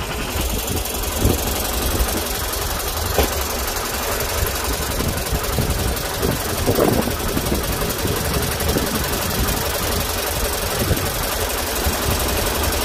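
Ford 4600 tractor's three-cylinder engine idling steadily, with a few brief thumps.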